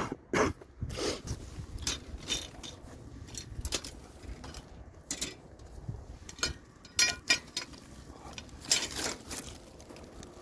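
Objects being handled: a string of short clicks, clinks and scrapes, the loudest right at the start and a busy cluster near the end.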